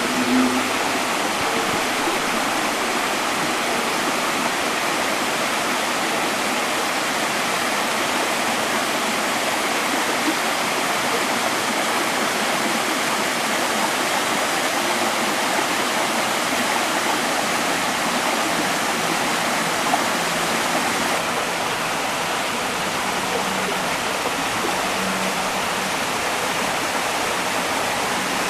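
Small mountain stream rushing down over rock in little cascades and waterfalls, a steady, even rush of water.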